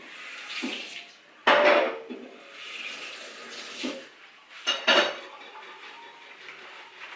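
Dishes and small kitchen utensils clattering with splashes of water, with two short louder bursts about one and a half and five seconds in.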